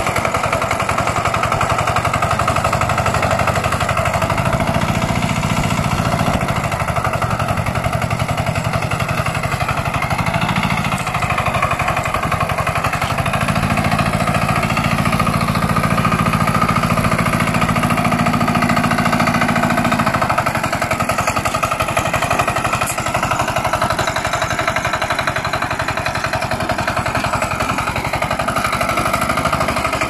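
Kuliglig hand tractor's single-cylinder engine running steadily while it pulls a plow through wet soil, with a fast, even chugging beat.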